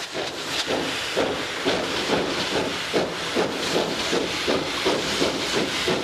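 Steam locomotive chuffing with steam hiss: a steady rhythm of about two to three exhaust beats a second that gradually quickens, fading in at the start.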